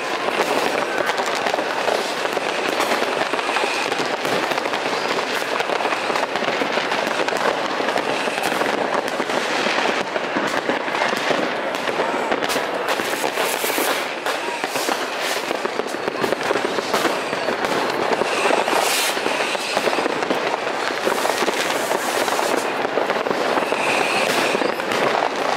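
Many fireworks rockets and firecrackers going off at once, a dense, unbroken crackle of bangs and pops, with a few sharper cracks standing out around the middle.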